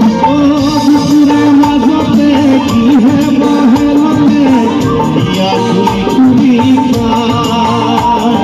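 Live Assamese Bihu song: a male voice singing a wavering, held melody into a microphone over a band with drums and other percussion.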